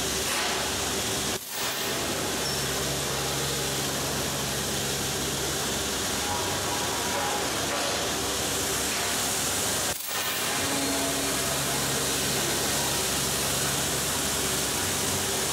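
High-frequency welded pipe production line running: a steady mechanical din with a strong hiss and a low motor hum that comes and goes, dipping briefly twice.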